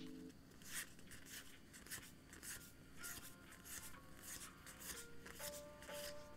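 Pokémon trading cards sliding against one another as they are flicked through one at a time in the hands: soft papery swishes about twice a second. Quiet background music plays underneath.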